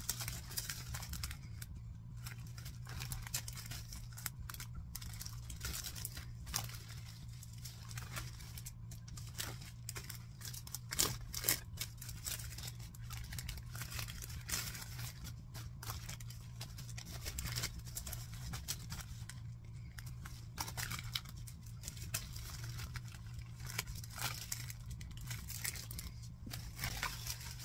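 Thin plastic Halloween treat bags crinkling and rustling in irregular crackles as they are unpacked and handled, over a steady low hum.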